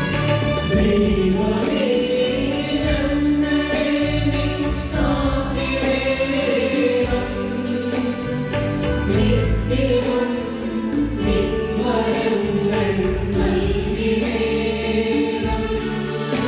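Church choir singing a hymn with instrumental accompaniment: several voices over sustained bass notes and a steady beat.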